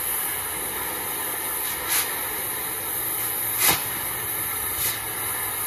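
Hose-fed propane torch burning with a steady hiss, its flame held on a steel auger shaft end. Three short sharp clicks come through it, the loudest a little past halfway.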